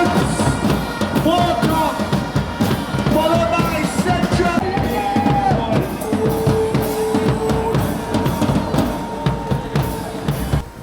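Music with a steady drum-kit beat and a melody line over it.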